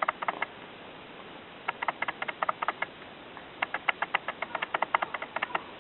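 A kitten drinking water: rapid wet tongue clicks, about eight to ten a second, in three runs with short pauses between.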